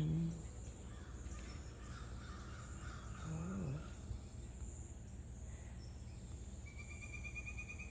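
Crows cawing over a steady high drone of insects. Near the end a fast, even trill starts up.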